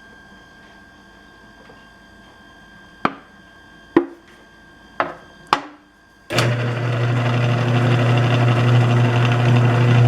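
A few sharp clicks and knocks, then about six seconds in a drill press motor switches on and runs with a steady hum. It is driving a tap into a drilled hole under power.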